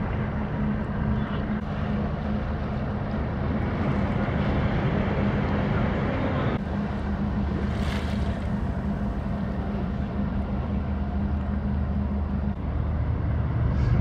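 Steady low drone of the 120 m cargo coaster Arklow Accord's engine as the ship moves slowly past close by, with water washing along its hull. A short louder rush of water comes about eight seconds in.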